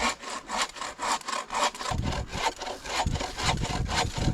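Hand saw cutting through wood in quick, even back-and-forth strokes, about four a second.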